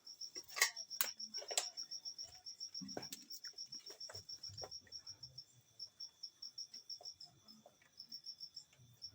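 A cricket chirping steadily in a rapid, even pulse of about ten chirps a second, with a few sharp clicks of handling in the first few seconds.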